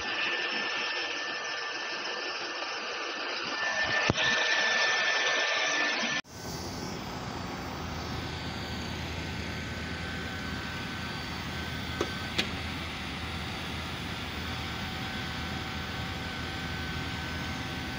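LIUDU TOP3400C automatic hot-air PVC welding machine running: a steady rush of air from its hot-air blower with a faint whistle over it. About six seconds in the sound changes abruptly to a lower, fuller rush, and two light clicks come near the middle.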